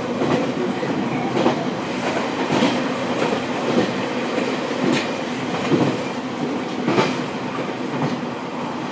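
Inside a KiHa 40 diesel railcar on the move, heard from the seat over its diesel engine: a steady running drone of engine and wheels, with the sharp clack of the wheels over rail joints about once a second.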